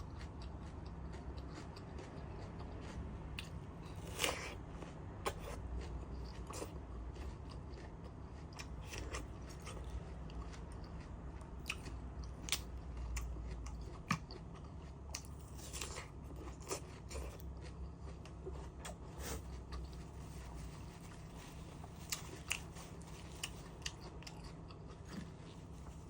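Close-up eating sounds: a person chewing and biting food, with scattered short crunches and wet mouth clicks throughout.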